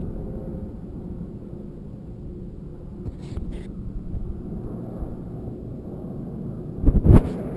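Distant RAF Westland Sea King helicopter giving a low, steady rumble as it approaches, with a brief burst of loud rumbling thumps near the end.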